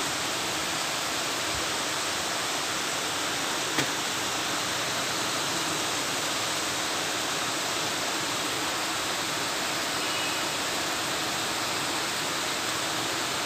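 Heavy rain falling steadily on a pond and the trees around it: an even, dense hiss, with one brief tap about four seconds in.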